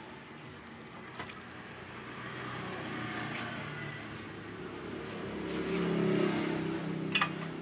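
A passing vehicle's engine swelling louder over a few seconds and then easing off. Two sharp clicks come near the end.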